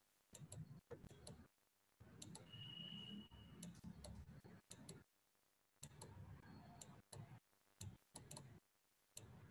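Near silence: faint room tone with scattered soft clicks and a brief faint high tone about two and a half seconds in.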